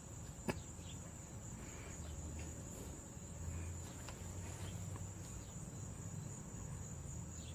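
Faint, steady high-pitched tone or trill held without a break, with a soft click about half a second in.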